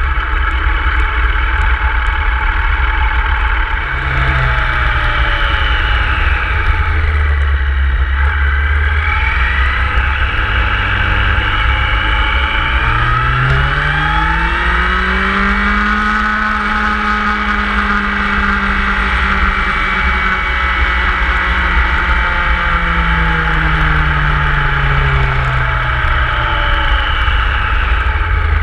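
Motorcycle engine running on the move over a steady low rumble. The engine note rises about halfway through, holds for several seconds, then falls back a few seconds before the end.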